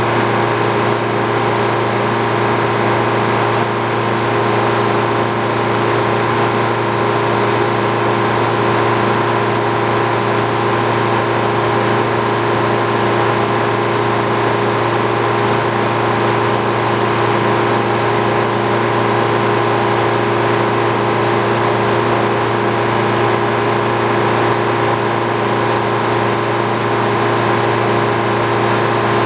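Old Frick sawmill running steadily: a loud, even low hum with a few steady whining tones over it, with no change in pitch or load.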